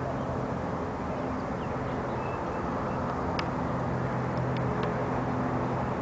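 A steady low engine hum and rumble. Over it come a few isolated sharp taps past the middle: a woodpecker pecking at a wooden utility pole.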